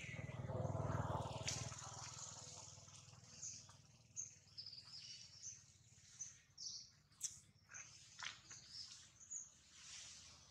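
Small birds chirping in short, scattered calls. A louder low rumbling noise swells and fades in the first two seconds.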